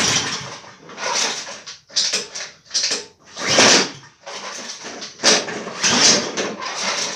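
An 8 hp Honda mower engine on choke, starting to run after its clogged carburettor main jet was cleaned: it fires in uneven, rough bursts and does not settle into a steady idle.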